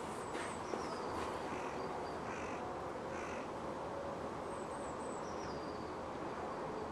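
A crow cawing a few times, about two to three seconds in, over the steady low hum of the city, with some thin high bird chirps.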